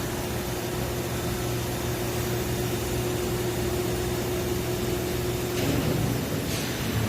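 Plasma keyhole welding equipment running on 12 mm stainless steel: a steady hiss over a low hum, with a steady tone that stops a little over five seconds in.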